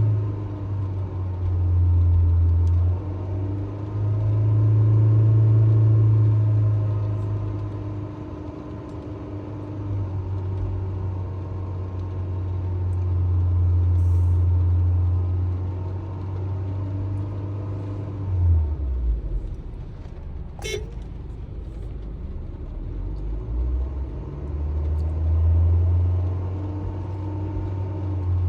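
Honda HR-V car engine running with its revs swelling and easing several times as the accelerator is pressed and let off. The engine note drops back about 18 seconds in and builds again near the end. A brief sharp sound comes about 21 seconds in.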